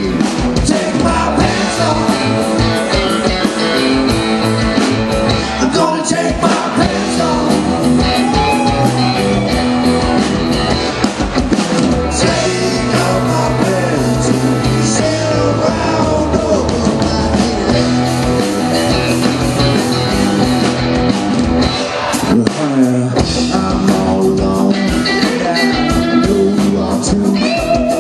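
Live rock band playing a song with a steady beat: two electric guitars, bass guitar and drum kit, with a man singing.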